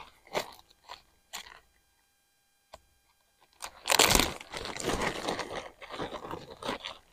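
Rummaging through a bag for a hot sauce packet: a few short rustles and clicks at first, then after a pause a longer spell of loud crinkling and rustling from about three and a half seconds in.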